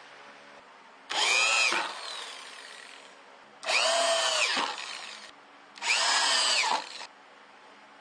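Drillmaster power drill driving screws into pine 2x6 boards in three short runs of about a second each. The motor's whine rises and then drops in each run.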